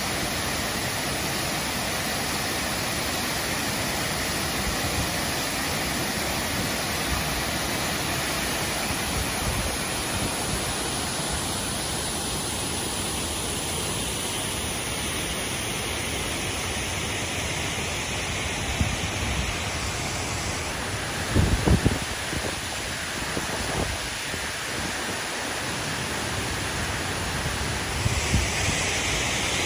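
Steady rush of water pouring over a stone weir and flowing on down the river, an even hiss across all pitches. A few low thumps come about two-thirds of the way through.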